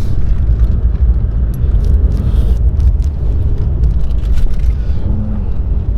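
Mercedes-AMG C43 driving on snow-covered road with all-wheel drive: a loud, steady low rumble of engine and tyres.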